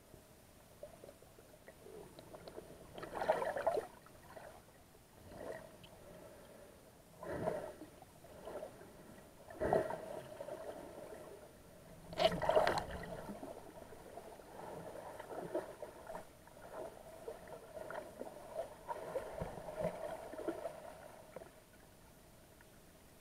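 Muffled water noise picked up by an underwater camera: irregular swells of sloshing and gurgling every few seconds over a steady low hum.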